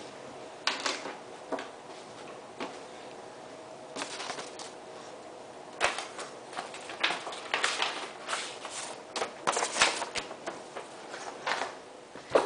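Paper rustling and crinkling with light, irregular taps and knocks of things handled on a tabletop, sparse at first and busier in the second half.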